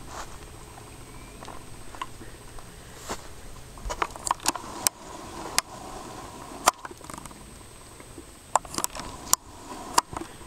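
Llama chewing close up: irregular sharp clicks and crunches of its teeth, some coming in quick clusters.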